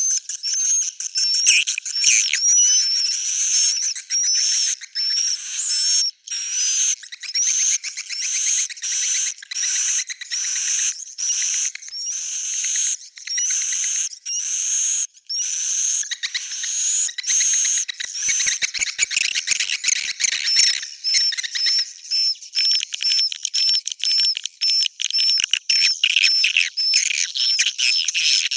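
Edible-nest swiftlets twittering in a dense, high chorus of chirps: a swiftlet 'inap' (roosting) call recording of the kind played in swiftlet houses to make the birds settle and roost. The chirps come in short bursts with brief gaps, then run more continuously near the end.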